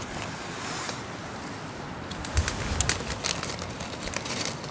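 Puffer jacket's nylon shell rustling and crinkling as it is put on, with a run of sharp crackles about two seconds in, over a steady background hiss.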